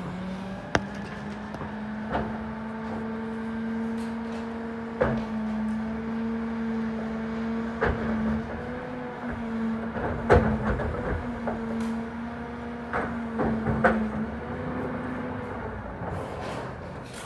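Rear-loader garbage truck's engine revved up and held steady to drive the hydraulics, with clanks and bangs as a cart is tipped by the rear cart lifter and trash drops into the hopper; the loudest bang comes about halfway through. Near the end the engine drops back to idle.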